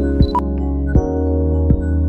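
Background music with held chords and a steady beat about every three-quarters of a second.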